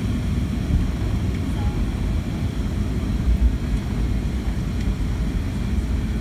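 Boeing 757-200 cabin noise while taxiing: a steady low rumble from the engines and the airframe rolling along the taxiway, heard from a seat beside the wing.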